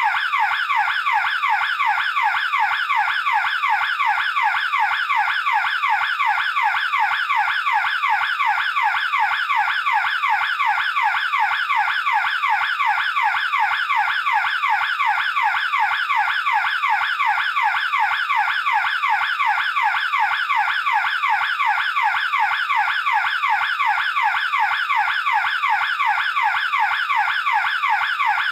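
Burglar alarm siren sounding continuously: a loud, steady, rapidly repeating warble that sweeps in pitch over and over without a break.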